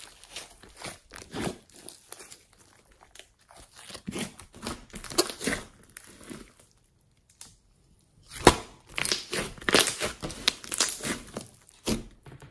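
Hands squeezing and pressing a lump of glossy green slime, giving irregular wet squelches, crackles and little air pops. It pauses briefly about seven seconds in, then resumes with a sharp loud pop and a quick run of pops.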